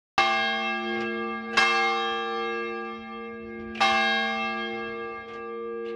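Church bell struck three loud times, with a few lighter strokes between, each stroke left ringing and slowly dying away.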